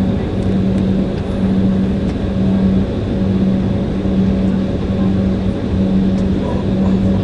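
Airliner's engines running: a steady loud drone with a low hum that drops out briefly every second or two.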